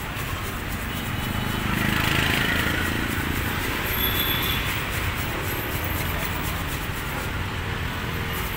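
Busy street-market ambience: a steady wash of passing traffic with indistinct voices in the background.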